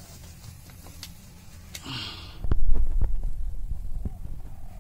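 Cattle close to the microphone: a cow's short snort about two seconds in, with scattered knocks and clicks. A loud low rumble sets in about halfway through and stays.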